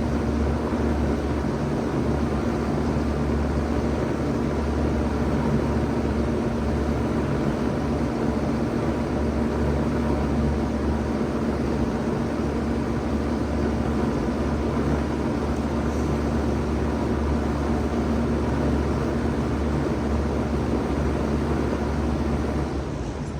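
1991 Bard Wall Aire 3-ton wall-hung heat pump running steadily in heat mode: a constant hum with a rush of air over it. Near the end the sound drops off somewhat as the unit begins to shut down.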